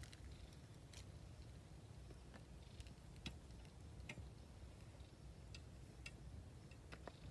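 Near silence: a faint low rumble with scattered, irregular faint ticks.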